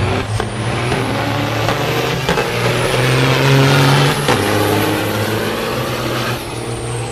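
Diesel semi-truck engines running under hard acceleration in a truck drag race, at their loudest about three to four seconds in. A faint high whistle rises and falls above the engine noise.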